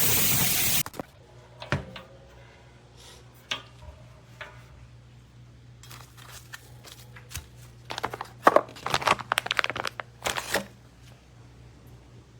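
A short burst of loud noise, then scattered clicks over a low steady hum, and a run of crinkling and clicking handling noises from about eight seconds in until near the end.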